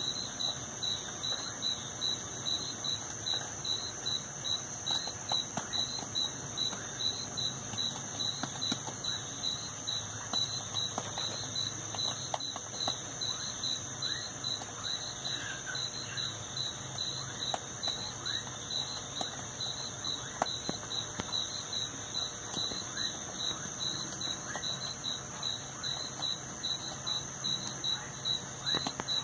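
Night insect chorus: one insect trilling steadily at a high pitch while another pulses in a regular, repeating beat, with faint scattered clicks and crackles underneath.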